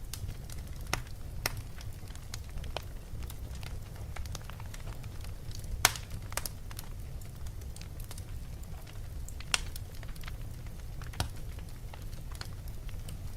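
Wood fire burning in a fireplace: irregular sharp crackles and pops over a steady low rumble of the flames, with a louder pop about six seconds in and another near ten seconds.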